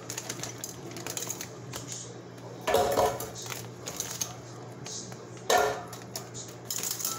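Plastic zip-top bag crinkling and metal tongs clicking as frozen strawberries are picked out, with two louder knocks, about three seconds and five and a half seconds in, as pieces drop into a plastic blender jar. A steady low hum runs underneath.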